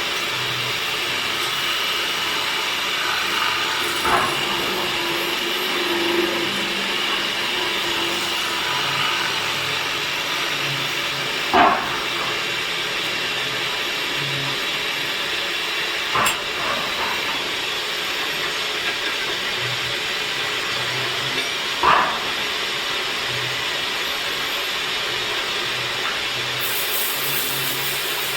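Steady hissing noise of a woodworking machine running on wood, broken by a few sharp knocks spread through it.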